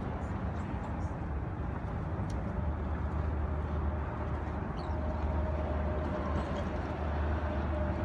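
Seaside outdoor ambience: a steady, low, noisy rumble with no single clear source. A faint steady hum joins about halfway through, and there are a few faint high chirps.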